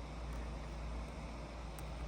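Dell computer running noisily: a steady whir over a low hum, the loud sound it is faulting with.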